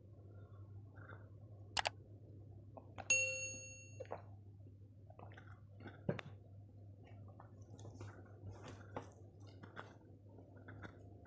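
A sharp double click, then a bright bell ding that rings out and fades within a second: the click-and-notification-bell sound effect of a subscribe-button animation. Faint small clicks and taps of hand and dishes follow, over a low steady hum.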